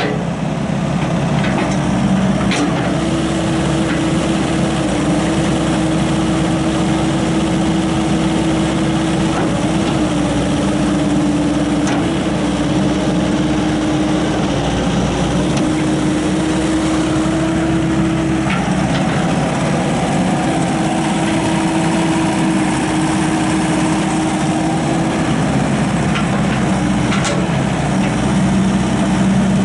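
Deutz diesel engine of a Bobcat 442 excavator running steadily, with a constant pitched hum and a few faint knocks.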